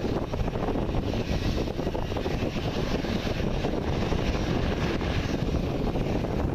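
Airbus A320's jet engines running at low thrust as the airliner taxis, a steady rushing drone with wind rumbling on the microphone.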